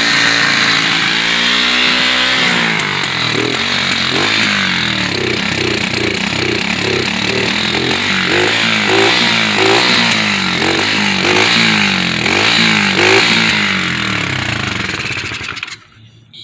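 125cc pit bike engine running, first steady, then revved in quick repeated throttle blips about one and a half a second, before it is shut off near the end. A tired, smoking engine due for a top-end rebuild with new piston rings.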